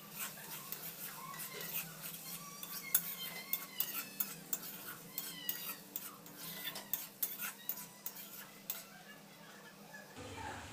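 A spatula stirring and scraping crumbly paneer bhurji around a kadai, giving a quick irregular run of clicks and knocks against the pan. A few short high squeaks come in the first half.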